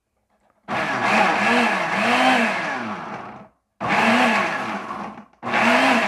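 Britânia BLQ1300 Fortis Turbo 1200 W blender pulsed three times: a long burst of nearly three seconds, then two shorter ones, the motor's pitch rising and falling as the load changes. The jar's shape has a hard time pulling the kale and pineapple down into the blades.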